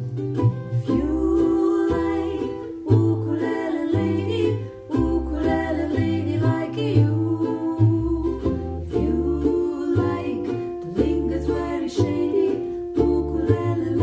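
Ukulele playing over plucked double bass, with women's sung vocals over the accompaniment.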